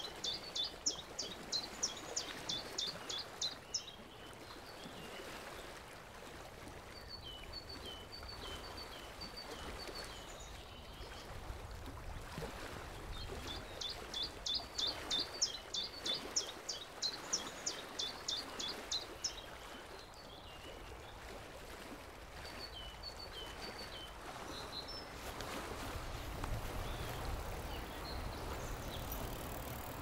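Songbird singing: a fast run of about a dozen clear, high, repeated notes, given twice, with softer short phrases in between, over a faint steady background hiss.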